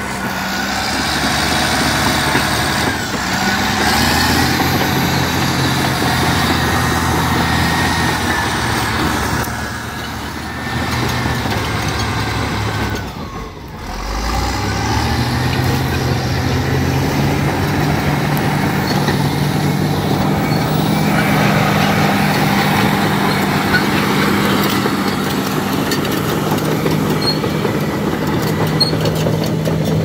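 Caterpillar D6 bulldozer's diesel engine running as the crawler drives, its steel tracks clattering. About halfway through, the engine drops away briefly, then picks up again and holds a steady note.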